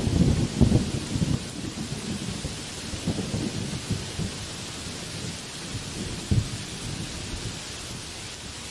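Heavy rain hissing steadily on banana leaves and trees, with a rumble of thunder that is loudest at the start and rolls away in weaker swells over the next several seconds.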